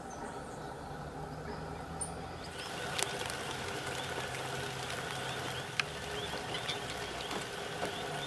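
A steady low hum, with a dense chorus of short, rapidly repeated chirps joining about two and a half seconds in, and a couple of sharp clicks.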